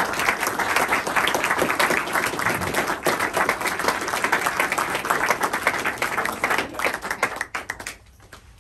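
Audience applauding, dying away to a few last claps about eight seconds in.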